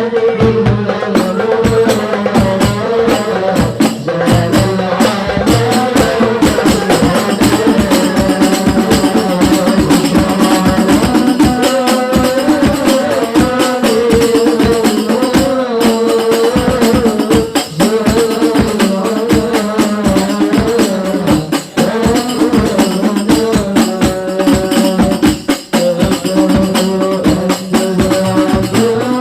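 Devotional music: hand-played frame drums with tambourine jingles keep a fast, even beat under a wavering melody line.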